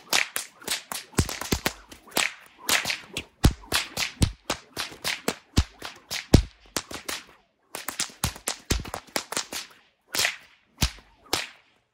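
A long whip cracked over and over in fast succession, about three or four sharp cracks a second, with two brief pauses. The cracks stop just before the end.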